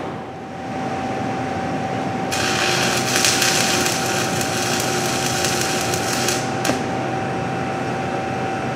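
Stick-welding arc on a 1/8-inch 7018 electrode at 120 amps, starting about two seconds in and crackling and hissing for about four seconds, then cutting out suddenly as the electrode freezes to the plate: the amperage is a little cold.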